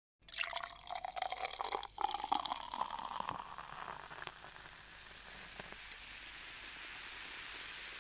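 Crackling, hissing effects from a lit bank-vault door display, with a faint tone rising slowly over the first three seconds, then settling to a faint steady hiss.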